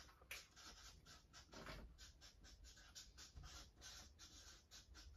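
Faint scratching of a marker pen writing on flip-chart paper, in quick, irregular strokes several times a second.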